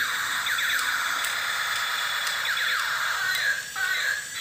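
Battery-powered 2-in-1 tank/jet-fighter toy playing its electronic shooting sound effects: falling-pitch tones repeating about once a second over a steady hiss.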